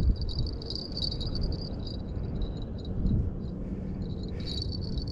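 A steady high-pitched chirring that flickers rapidly without changing pitch, over a low rumble.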